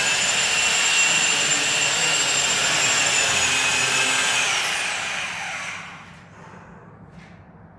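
Electric power tool running at a steady high-pitched whine, then switched off, its pitch falling as the motor spins down and fades out about six seconds in.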